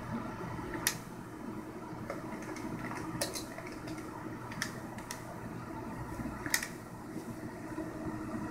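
Ultrasound machine console keys and buttons clicking sharply about five times, scattered across a few seconds, over a steady machine hum, as the sonographer labels and captures scan images.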